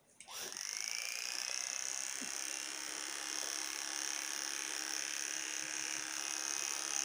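Electric hair clipper switched on just after the start, spinning up quickly with a rising whine, then buzzing steadily as it trims a toddler's hair.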